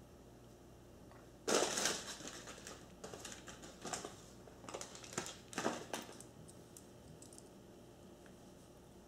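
Rustling and crinkling of things being handled and moved about, in a run of short bursts with a few light knocks, the first and loudest about a second and a half in, dying away about six seconds in.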